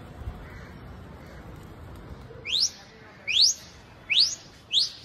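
A person's sharp rising whistles, four in a row less than a second apart starting about halfway through, each sweeping quickly upward: a keeper whistling to his pigeon flock in flight.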